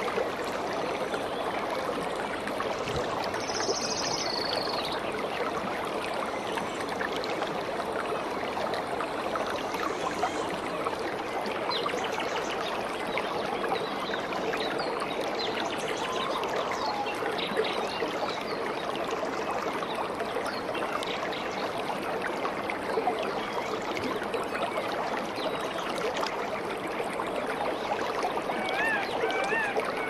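Mountain stream rushing steadily through a rocky gorge. A few short high-pitched calls sound over it, one about three seconds in and a run of wavering notes near the end.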